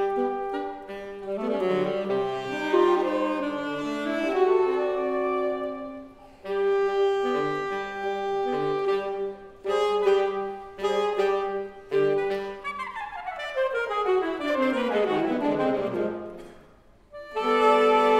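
Saxophone quartet of soprano, two alto and tenor saxophones playing in harmony, with held notes and quick runs. A long descending run spills down through the parts near the end. It breaks off briefly, and then a loud held chord comes in just before the end.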